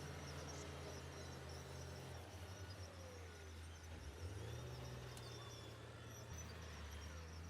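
Heavy construction machinery engines running, a low steady hum whose pitch shifts a few times as the engines change speed.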